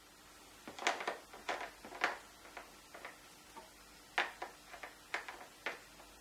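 Handling noise: a dozen or so light taps and clicks at uneven intervals, the loudest about a second, two seconds and four seconds in, over a faint steady room hiss.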